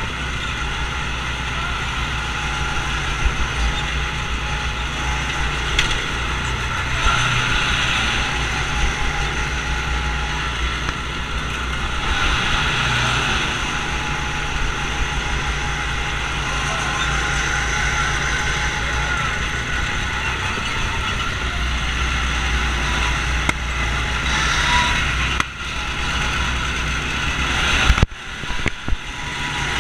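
Go-kart engines running steadily at speed on a track, a continuous small-engine drone. Near the end the sound cuts in and out a few times.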